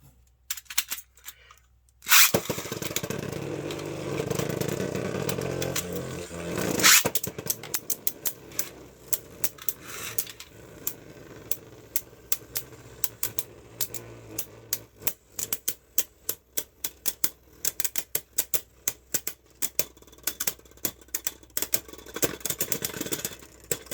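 Beyblade Burst spinning tops launched into a stadium with a sharp snap about two seconds in, then spinning with a steady grinding whir. A loud hit comes about seven seconds in, followed by a long run of quick plastic clacks as the tops collide and knock around the stadium.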